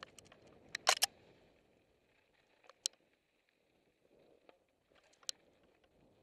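Mountain bike rattling over a rocky trail: a few sharp knocks and clatters from the bike, the loudest cluster about a second in, over a faint crunch of tyres on gravel.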